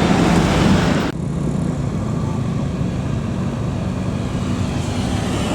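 Heavy tour-bus diesel engine working uphill: a loud rush of engine and passing noise for the first second, then an abrupt change to a steadier, lower engine drone.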